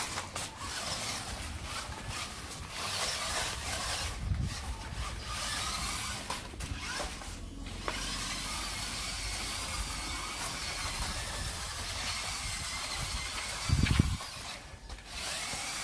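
Small electric motors and gears of a toy remote-control rock-crawler car whirring as it drives over concrete and gravel, with a thin high whine that wavers as the throttle changes. A brief low bump comes near the end.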